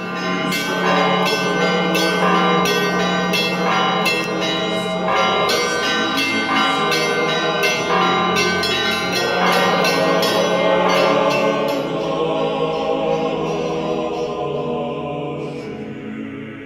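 Church bells ringing, several bells struck in quick, irregular succession with long ringing tones over a steady low hum. The strikes thin out after about ten seconds and the ringing dies away near the end.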